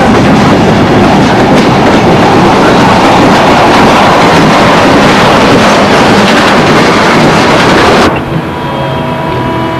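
Loud, steady noise of a moving train on the rails. About eight seconds in it cuts off suddenly, and a quieter steady hum with a few held tones takes over.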